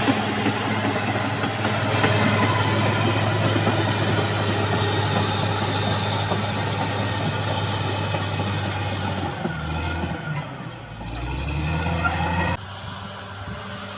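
CAT D6R XL bulldozer's diesel engine running hard with the clatter of its steel tracks. About ten seconds in the engine note dips and shifts, and near the end the sound drops suddenly to a quieter engine running.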